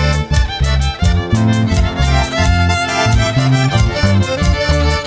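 Live band playing an instrumental passage of a chimaychi, the Ancash folk dance rhythm, with a steady quick beat under a bass line and sustained melody notes.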